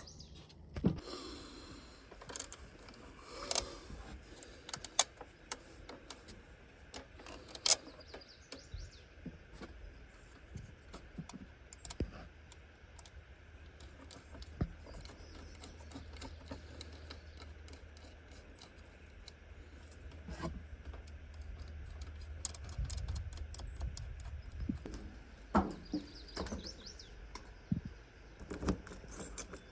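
Scattered light clicks, taps and small rattles, like keys and small objects being handled, with a faint low hum through the middle stretch.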